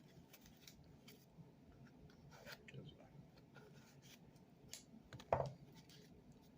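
Faint rustling and small clicks of paper trading cards and their packaging being handled, with one louder short sound about five seconds in.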